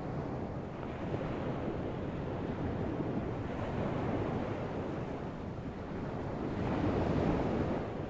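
Atlantic surf breaking and washing up a sandy beach: a continuous rushing wash that swells as a wave comes in, loudest in the last second or two.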